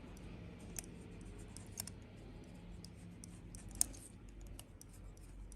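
Faint scattered clicks and light scraping of pedicure tools working on a hardened, cracked sole, the sharpest clicks about a second, two seconds and just under four seconds in, over a steady low hum.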